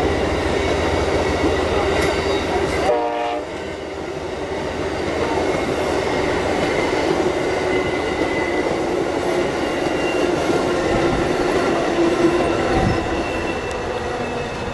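Amtrak Northeast Regional passenger coaches rolling past on the rails, a steady rumble with a high wheel squeal running through it. A short stacked tone, like a horn note, sounds about three seconds in.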